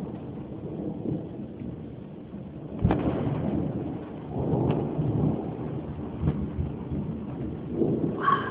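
Thunderstorm with steady rain and thunder: a sharp thunderclap about three seconds in, followed by rolling rumbles that swell and fade.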